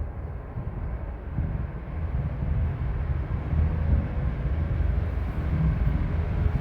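Ceiling fan running with its bearing noise audible: a low, uneven rumble with a faint steady hum over it.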